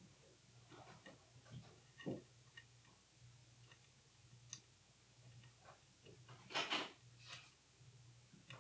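Faint, scattered small clicks and taps of a small screwdriver and metal parts as screws are worked out of a Leica IIIF camera body, with a louder, brief rustling scrape about six and a half seconds in.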